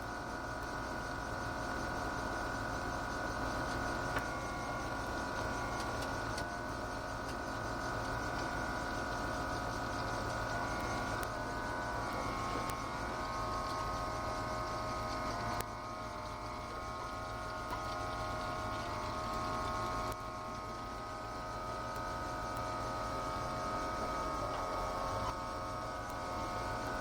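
Ford GT40's V8 engine running at a steady low parade pace, with a steady whine that shifts a little in pitch now and then and a few faint clicks.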